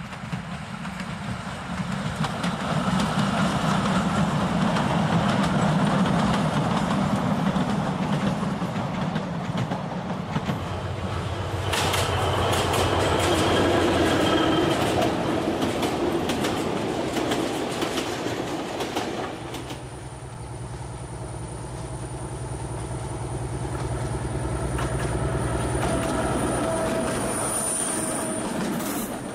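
Model trains running on the layout's track: a continuous running rumble with the clicking of wheels over rail joints. The sound changes with each passing train.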